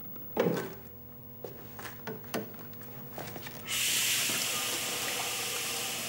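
Water spraying steadily onto a sheet of glass, rinsing off the laser-exposed light-sensitive coating to develop the pattern; the hiss starts suddenly about two-thirds of the way in. Before it, a few faint knocks over a low steady hum.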